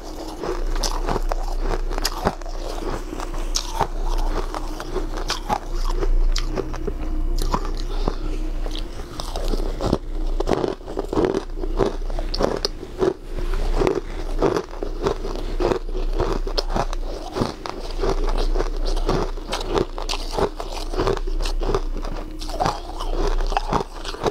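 Mouthfuls of shaved ice crunched and chewed, a dense run of irregular crackly crunches, over a steady low hum.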